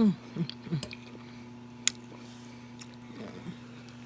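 Close-up eating sounds: wet chewing and lip smacking over a mouthful of chicken Alfredo. Three short throat sounds falling in pitch come in the first second, and a sharp smack follows about two seconds in.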